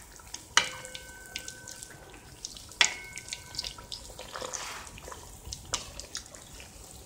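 Vanaspati ghee sizzling and crackling softly around a satpura deep-frying on a very low flame, as a steel ladle pours hot ghee back over it in dribbles. A few sharp metal clinks of the ladle against the aluminium kadai, the first two, about half a second and three seconds in, ringing briefly.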